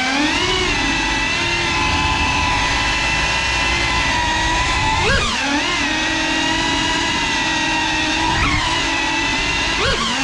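GEPRC FPV drone's motors and propellers buzzing at a steady high pitch, with quick swoops in pitch about five seconds in, around eight and a half seconds and near the end as the throttle changes.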